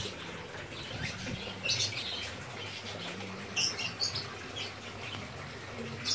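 A few short, high bird chirps, scattered and separated by pauses of a second or two, over a faint steady background.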